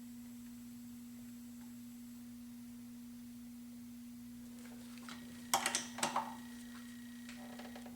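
A quick cluster of sharp metal clicks and clinks, parts and tools being handled during camshaft and bolt assembly on a V12 cylinder head, about five and a half seconds in, with a few fainter ones near the end. A steady hum runs underneath.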